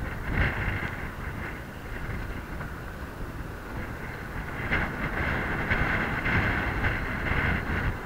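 Wind buffeting the microphone on a boat in choppy sea, with a steady hum that grows louder about five seconds in.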